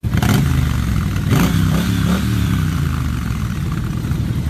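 Motorcycle engine running, revved up briefly about a second and a half in.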